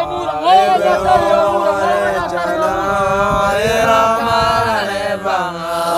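Several voices singing a chant-like Otuho (Lotuko) song, the sung lines overlapping without a break.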